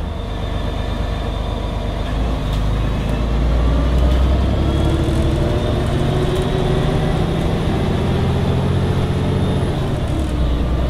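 Volvo Olympian double-decker bus's six-cylinder diesel engine pulling under load, heard from inside the passenger saloon through its Voith automatic gearbox. The engine note builds over the first few seconds and climbs steadily as the bus accelerates, then dips briefly near the end, as at a gear change, before picking up again.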